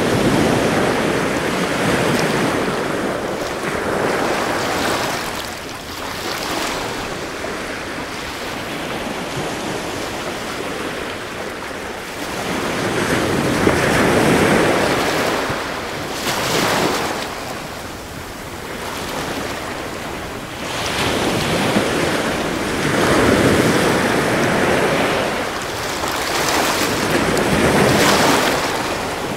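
Ocean surf: waves rolling in and washing back, the noise swelling and fading every few seconds.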